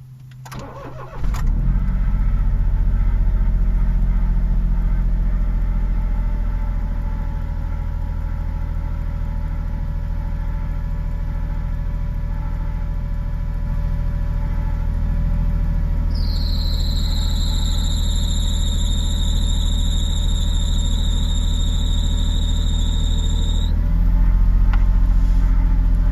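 Car engine cranks briefly and catches about a second in, then idles steadily. About 16 seconds in, an abnormal high-pitched squealing whistle sets in, dips slightly in pitch, holds steady for about eight seconds and cuts off. The engine note rises just after.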